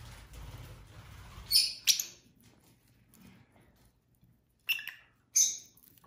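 Lovebirds giving short, sharp, high chirps: two about one and a half to two seconds in, and two more near the end. A low rumbling noise runs under the first two seconds.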